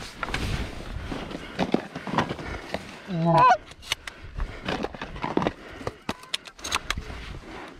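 Rustling and scraping of a layout blind's fabric cover and stubble grass as a hunter settles in and pulls the cover over, with Canada geese honking close by. The loudest honk comes about three seconds in.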